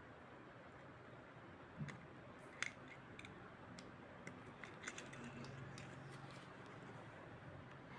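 Faint, scattered clicks and taps as a fan regulator is handled and worked on during its removal from the circuit. The sharpest click comes about two and a half seconds in, with a faint low hum in the second half.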